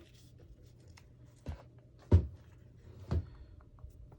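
Three light knocks of craft supplies being handled on a work table, the middle one the loudest, with a few faint ticks between them.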